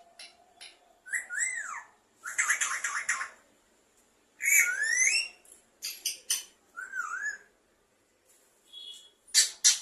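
Parrot calling: whistled notes that swoop up and down, mixed with harsh buzzy squawks. Near the end come rapid repeated chirps, about four or five a second.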